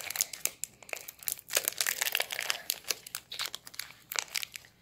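Foil wrapper of a Pokémon Evolutions booster pack crinkling and crackling in the hands in quick, irregular bursts as it is worked at to be torn open, dying down near the end.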